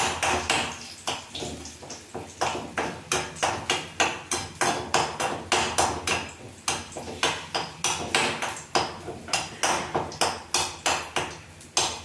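Metal spoon stirring garlic in a small metal kadai, clanking against the pan about three times a second, each clank ringing briefly. The garlic is frying in oil for a tempering.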